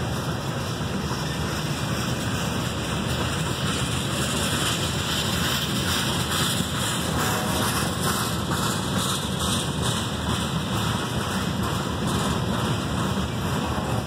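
Freight cars (tank cars, then covered hoppers) rolling past at speed: a steady rumble and rush of steel wheels on rail.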